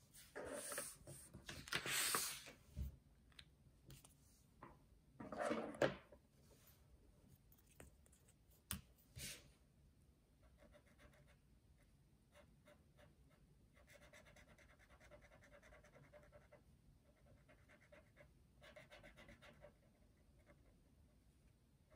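A paper sheet rustling and sliding on a tabletop as it is moved, a few times in the first six seconds. Later come faint, rapid back-and-forth scratches of a felt-tip marker colouring in on paper.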